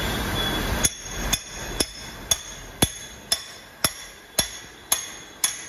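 Hammer tapping on a workpiece in a milling-machine vise: ten sharp metallic taps, about two a second, each with a short ring, as the part is knocked down to seat it in the vise. A steady rushing noise cuts off just before the first tap.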